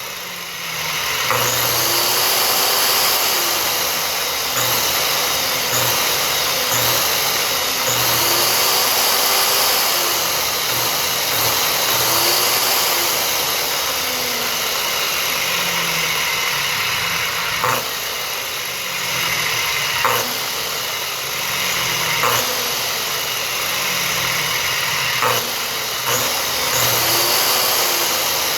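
Corded electric saw running continuously and loud, its motor pitch rising and falling every few seconds, with a few sharp clicks in the second half.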